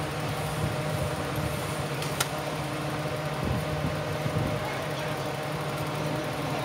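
Steady low machinery hum with a single sharp click about two seconds in.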